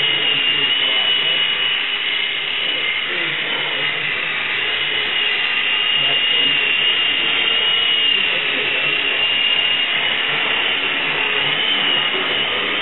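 Small indoor RC tandem-rotor helicopter flying: a steady high electric-motor whine with rotor buzz, its pitch wavering slightly as the throttle shifts.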